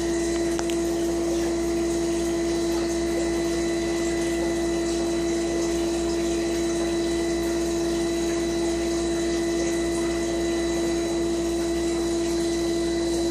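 Fish-tank pump humming steadily at one even pitch, with the hiss of air bubbling through the water.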